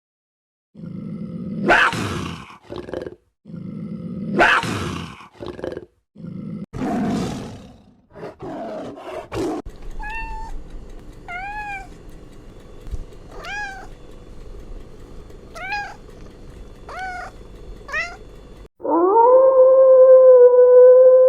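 A run of animal calls: about four deep, rough roars or growls, then a domestic cat meowing about six times in short rising-and-falling calls, then a long, wavering pitched howl that starts near the end.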